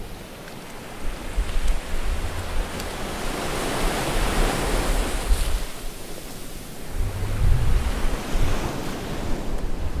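Ocean waves washing in, one swell building to a peak around the middle. Wind buffets the microphone with a low rumble in gusts, most strongly in the last few seconds.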